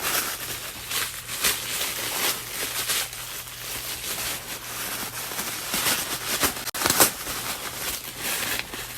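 Packing material rustling and crinkling as it is handled and pulled out of a new handbag, a continuous run of crackles with a louder crackle about seven seconds in.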